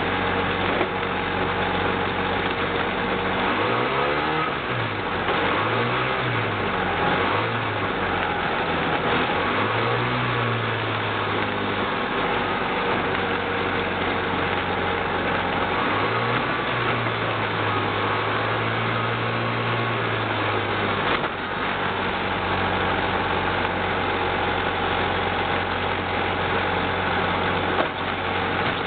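Himax ultralight airplane's engine and propeller running, taxiing on the ground; a steady drone whose pitch swings up and down several times as the throttle is worked, heaviest in the middle and again for several seconds past the halfway mark.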